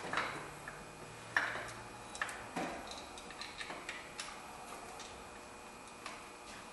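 Scattered metallic clicks and light knocks as a new serpentine belt tensioner is set against the engine and its bolts are started by hand; the sharpest knocks come about one and a half and two and a half seconds in, with smaller ticks after, then it goes quiet.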